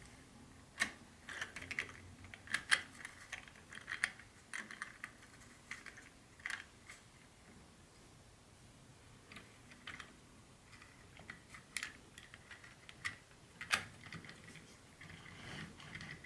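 Light, irregular clicks and taps with short crinkly rustles, from the model train set's parts and packaging being handled. They come in two spells, with a quieter gap in the middle, and one sharper click near the end.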